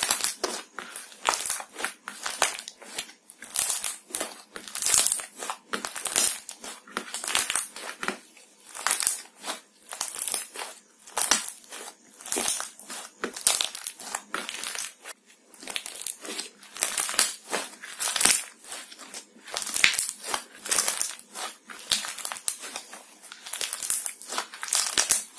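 Soft blue iceberg slime squeezed and kneaded by hand, giving off a dense, irregular run of short sticky pops and clicks, several a second, as it is pressed and pulled.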